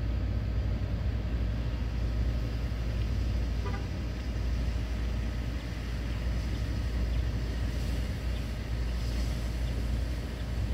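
Steady low rumble of background traffic noise.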